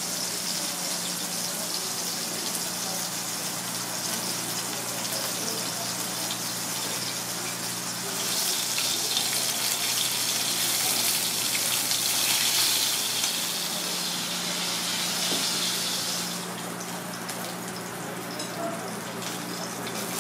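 Monkfish pieces sizzling in oil in a small cast-iron pan: a steady crackling hiss that grows louder about eight seconds in and falls off about sixteen seconds in.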